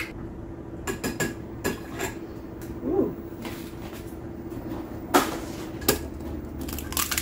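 Eggs being tapped and cracked against the rim of a glass dish, with a fork clinking on the glass: a string of sharp knocks and clicks, the loudest about five seconds in, over a faint steady hum.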